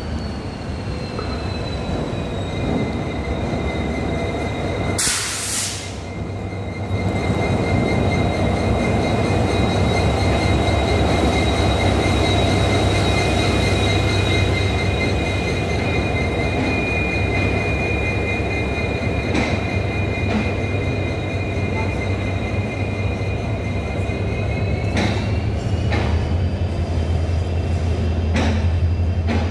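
Indian Railways WDP4D diesel-electric locomotive (two-stroke EMD engine) rolling slowly into a platform with its train. A steady deep engine drone runs under a steady high wheel squeal that shifts in pitch near the start and again near the end. A short burst of hiss comes about five seconds in, the drone grows louder as the locomotive comes alongside, and a few clanks are heard as the coaches follow.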